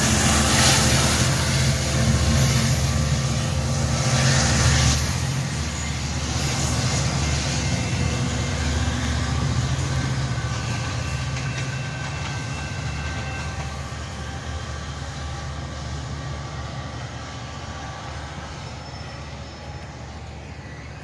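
Diesel-hauled bilevel commuter train moving away along the track: a low locomotive engine rumble and the rolling of wheels on the rails, loudest in the first five seconds, then fading steadily.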